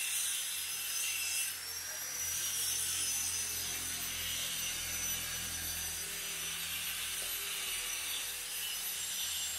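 Angle grinder grinding steel, a steady high-pitched grinding hiss. Its pitch and loudness dip briefly about one and a half seconds in.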